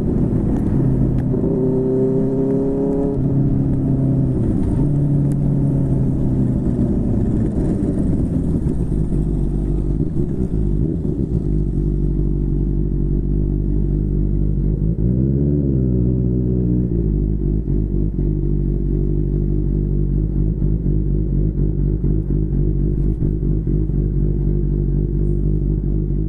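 QJMotor SRK600's inline-four engine through a Yoshimura R11 exhaust, revving briefly and easing back in the first few seconds, then running steadily at low revs. One short rev rises and falls about halfway through.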